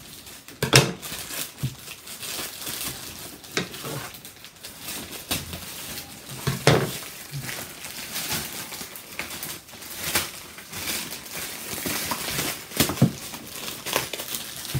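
Plastic postal mailer bag being torn open and crumpled by hand: irregular crinkling and rustling, with several sharper, louder crackles now and then.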